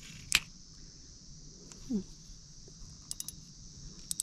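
Sharp clicks from a spinning reel being worked on a fishing rod: one loud click just after the start, a quick cluster of small clicks about three seconds in and more at the end, over a steady background chorus of insects.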